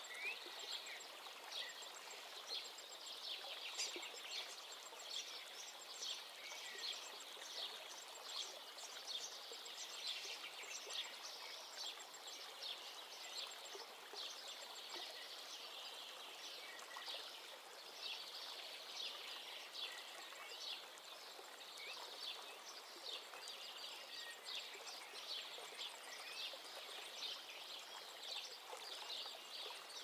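Birdsong: many small birds chirping in quick, overlapping short calls throughout, over a steady soft wash of rippling water.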